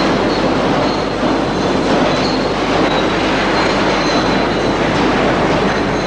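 Steel mine cars and haulage machinery at an underground shaft landing: a loud, steady rumbling clatter of cars on rails, with a thin high squeal coming and going.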